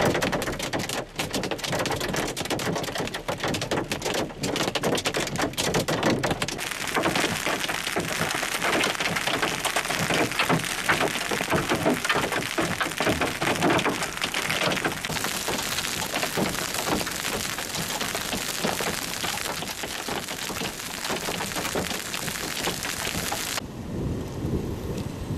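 Hail and rain drumming on a car's windshield and roof, a dense rattle of impacts. About six seconds in it gives way to an even hiss of hail and rain falling outside, and near the end, after a cut, to a duller low rumble.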